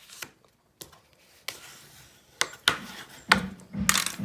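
Scattered light clicks and taps of paper-crafting supplies being handled on a table. From about three seconds in, a rhythmic knocking or scraping starts, about two strokes a second.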